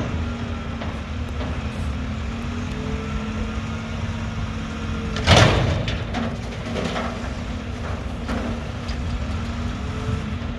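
Mack garbage truck's diesel engine running steadily, with one sudden loud burst of noise about five seconds in that fades away over about a second.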